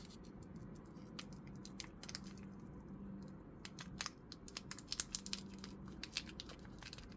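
Faint crinkling and small clicks of plastic and foil card packaging being handled and torn open. The crackles come sparse at first and grow busier about halfway through.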